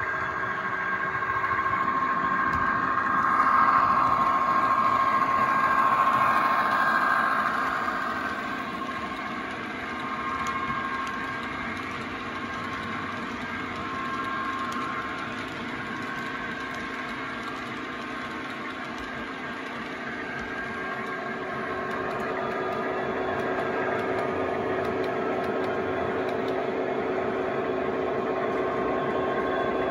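Diesel engine sounds from the DCC sound decoders of OO gauge model locomotives, played through their small onboard speakers as the models run. Louder for the first several seconds, then steadier and quieter.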